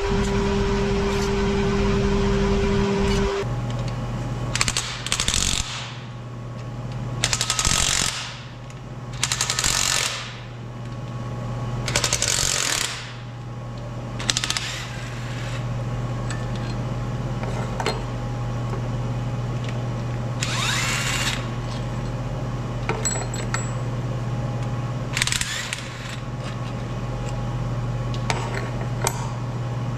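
Cordless power tool running in repeated short bursts, backing fasteners off a Detroit Diesel 4-53T engine so the blower can come off, over a steady low hum.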